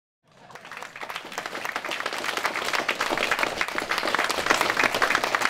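A group of people clapping hands in applause, fading in from silence just after the start and building louder.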